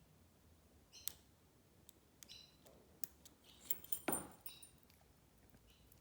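Faint clicks and scrapes of a lock pick and tension wrench working the pins of a Burg Wachter padlock, with a louder cluster of clicks and a short metallic ring about four seconds in.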